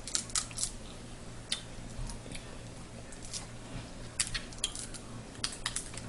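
Mukbang eating sounds from a seafood boil: scattered sharp clicks and light clatter, coming alone and in small clusters, as shellfish shells and utensils are handled.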